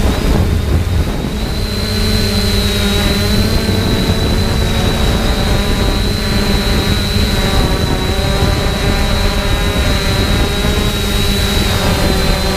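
3DR Solo quadcopter's electric motors and propellers buzzing steadily in flight, heard from the GoPro carried on the drone itself, with a constant high whine over the hum. Wind rumbles on the microphone, most strongly at the start.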